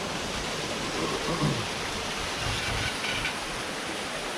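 Steady rushing of a river flowing close by.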